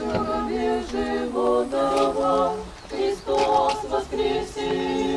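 Orthodox church choir singing a cappella, several voices in harmony on held chords, in short phrases with brief breaks between them.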